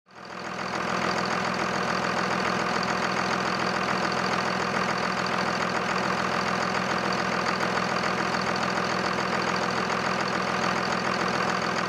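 Cummins diesel engine idling steadily, fading in over the first second.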